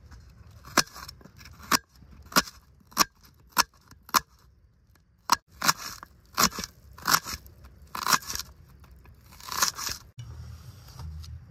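Knife cutting food on a board: a run of sharp cuts at irregular intervals, roughly one every half second, with a couple of longer scraping strokes near the end.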